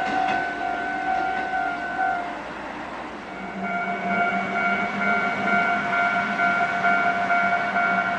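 Japanese level-crossing warning bell ringing in rapid, even clangs, with a train running by. The bell cuts off about two seconds in and starts again about a second and a half later in a slightly different tone.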